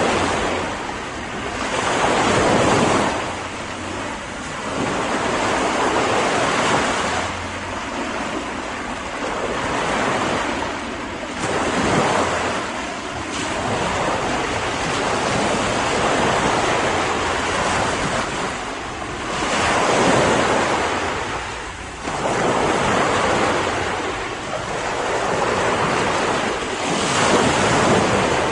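Ocean waves breaking and washing onto a beach, swelling and falling every few seconds, with some wind.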